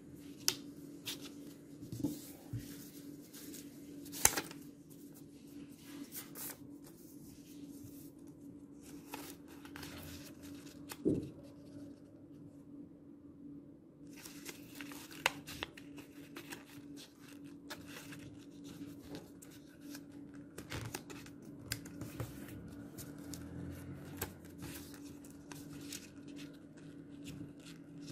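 Paper being folded and creased by hand: intermittent rustling and crinkling, with a few sharp clicks as folds are pressed flat. A steady low hum runs underneath.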